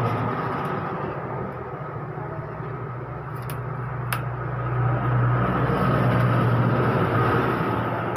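A steady low hum, a little louder in the second half, with a few small sharp clicks of plastic printer parts about three to four seconds in as the opened inkjet printer's carriage mechanism is handled.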